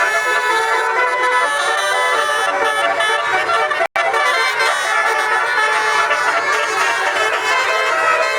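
Basuri bus telolet horns, multi-tone musical air horns, playing melodies together in a dense, loud chorus of horn tones. The sound cuts out for a split second just under four seconds in, then carries on.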